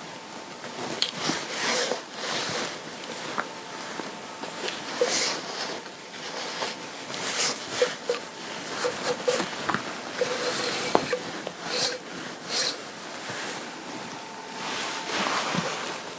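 Garment fabric rubbed and handled as lint is removed: irregular rustling swishes with a few small clicks.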